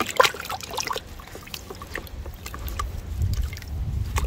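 A plastering knife being scrubbed and swished by hand in a bucket of water, with splashes and small knocks of the blade against the bucket, mostly in the first second or so. A low rumble builds in the second half.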